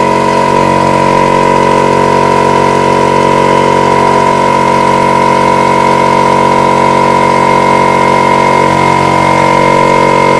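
Small air compressor running steadily with a high whine, refilling its tank after cutting in again on the pressure switch.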